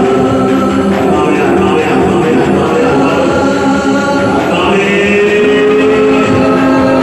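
Choir singing a slow Christian devotional song, the voices holding long notes, with a new, brighter chord coming in a little past halfway.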